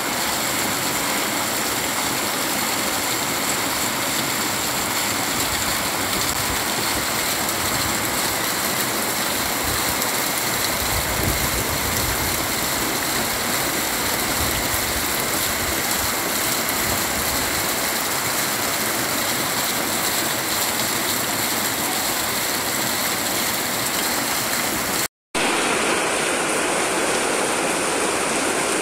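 Heavy downpour: steady rain with water gushing off a roof into a plastic water barrel. A moment of silence about 25 s in, then steady rain again on a wet street.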